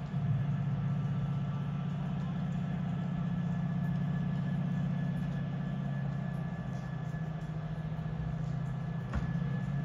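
Class 68 diesel-electric locomotive's Caterpillar V16 engine under power, a steady low drone, with one sharp click about nine seconds in.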